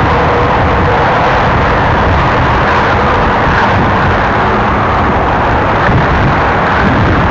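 Freight train cars rolling downgrade, a loud, steady rumble of wheels on rail.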